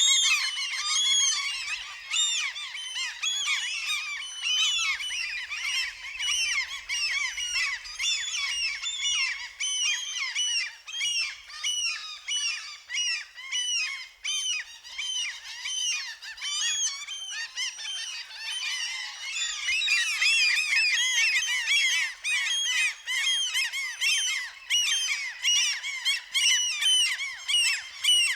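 A flock of seagulls calling over one another: many overlapping squawks, one after another without a break.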